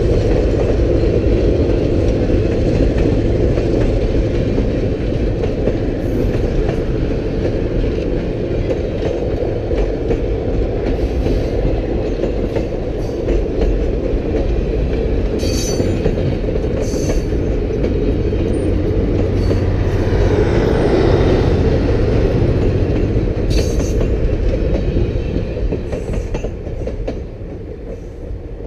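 Passenger train coaches rolling past, wheels running on the rails in a steady rumble with a few sharp clicks. The sound eases off near the end as the last car moves away.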